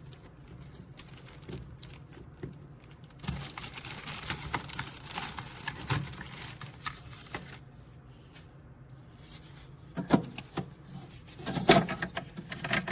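An ice cube tray being fitted into a mini fridge's small freezer compartment: a few seconds of scraping and rustling, then a few sharp knocks near the end as it goes in.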